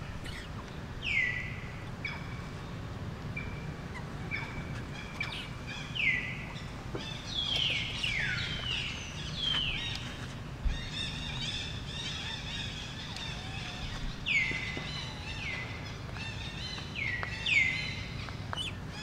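Repeated short, high-pitched animal calls, each sliding down in pitch, coming every second or so and bunching closer together in the middle, over a steady low background rumble.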